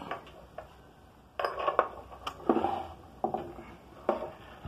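Sewing machine metal parts and a screwdriver clinking and knocking together as a part is opened up with the screwdriver: a run of sharp metallic clinks and scrapes starting about a second and a half in.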